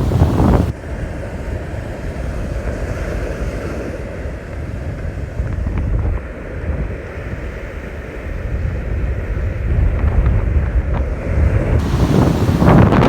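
Wind buffeting the microphone over the wash of ocean surf, with a louder rush of noise right at the start and another near the end.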